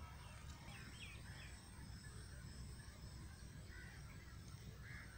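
Faint birds chirping outdoors, with a few short calls about half a second in and again near the end, over a low steady rumble.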